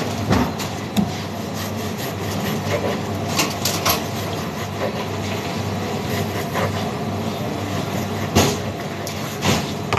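Large knife sawing through a loaf of soft white sandwich bread, with several sharp knocks as the blade meets the plastic cutting board, the loudest about eight seconds in. Underneath runs the steady hum of a kitchen extractor hood.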